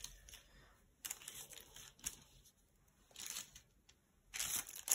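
Small craft bits (metal paper clips, ribbon, a tassel) being picked up and moved off a sheet of card on a paper bag, making faint rustles and light clicks. They come in several short bursts and are loudest near the end.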